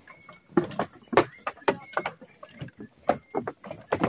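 Footsteps of several people walking on a wooden plank boardwalk: irregular hollow knocks, two to four a second. A steady high insect drone runs underneath.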